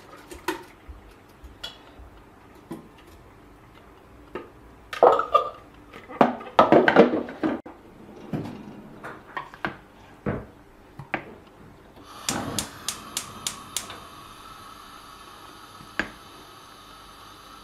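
Purée scraped with a spatula out of a plastic food-processor bowl into a stainless-steel pot, with knocks and clatter of bowl, spatula and pot. About twelve seconds in, a gas hob's igniter clicks about six times in quick succession, and a steady hiss with a hum follows.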